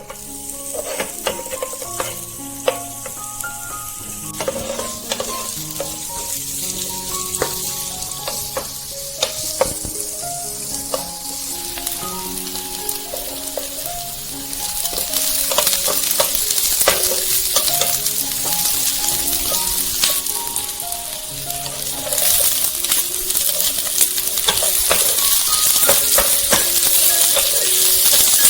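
Food sizzling as it fries in a pan, with repeated clicks and scrapes of a spoon stirring it. The sizzle grows louder about fifteen seconds in and again past twenty seconds, over soft background music.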